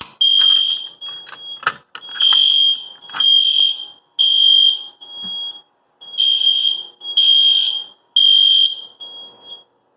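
Fire alarm horn sounding loud and high-pitched in repeated blasts, set off by a key-activated pull station. The blasts come in pairs about every two seconds, with a few sharp clicks about one to two seconds in.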